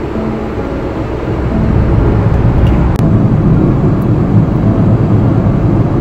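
Road and engine noise heard inside a moving car's cabin: a steady low rumble that grows louder about two seconds in.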